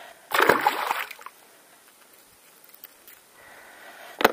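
A small northern pike of about half a kilo dropped back into the river with a splash that dies away within about a second. A single sharp click near the end.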